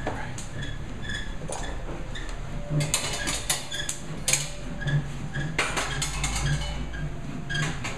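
A machine part creaking in a steady rhythm, about twice a second. Over it come scattered metal clanks and knocks as the stainless steel gasifier stove is taken hold of and handled.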